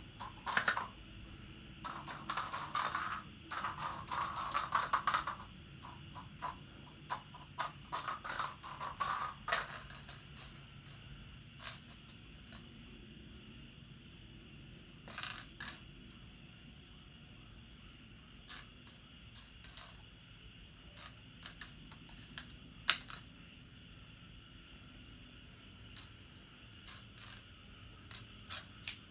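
Crickets chirping steadily in a high, even trill, with scattered light clicks and scuffs from kittens playing on a concrete floor, busiest in the first ten seconds, and one sharp click about 23 seconds in.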